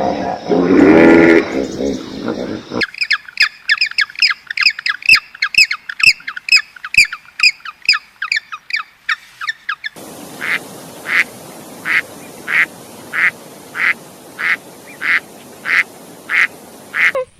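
A run of animal calls from cut-together clips: a deep pitched call at first, then rapid chirping bird calls about three a second, then a duck quacking in an even series, about one and a half quacks a second, over a steady hiss.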